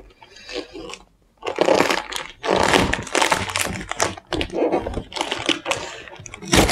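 Cardboard LEGO set box being torn open, its flaps pulled apart: a dense run of crackling, tearing rasps starting about a second and a half in, after a brief moment of near silence.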